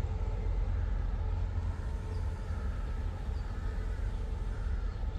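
Steady low rumble and hum of a locomotive moving slowly into a railway yard.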